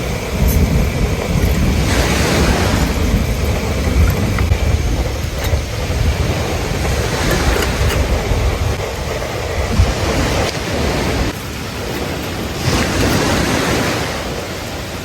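Sea waves washing onto a beach, swelling every few seconds, with wind buffeting the microphone in a low rumble.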